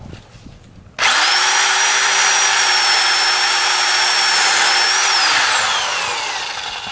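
Angle grinder cutting through a steel kiosk anchor bolt. It starts abruptly about a second in and runs with a steady high whine for about four seconds, then is switched off and winds down with a falling pitch.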